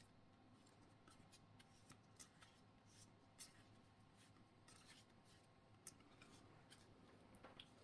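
Faint, scattered snips, clicks and rustles of scissors and thin foil Pokémon booster packs being cut open and handled.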